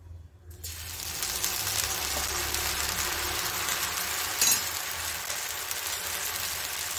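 Rava (semolina) uttapam batter sizzling on a hot oiled dosa tawa. The sizzle starts suddenly about half a second in and then runs steadily, with one short tick a little past halfway.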